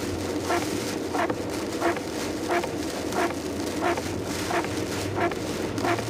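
Suzuki Swift's windshield wipers sweeping at high speed, a regular stroke about every two-thirds of a second. Underneath is the steady rush of heavy rain and wet tyres and a low engine hum, heard inside the car's cabin.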